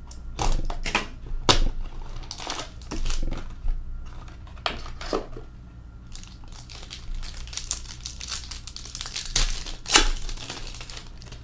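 A sealed box of hockey cards slit open with a utility knife, then card packs unwrapped and handled: crinkling wrapper and cardboard rustles with short, sharp scrapes, the loudest about ten seconds in.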